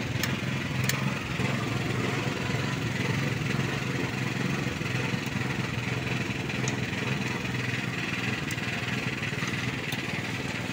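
Engine idling steadily, with a few light sharp clicks.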